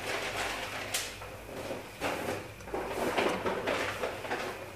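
A spoon spreading thick meat sauce over rice in an aluminium pan: irregular wet scraping against the pan, with a sharp knock about a second in.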